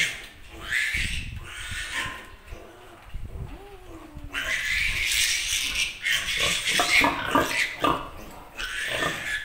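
Newborn piglet squealing while held and restrained. There are short squeals in the first second, then loud continuous squealing from about halfway through that breaks into rapid repeated squeals near the end.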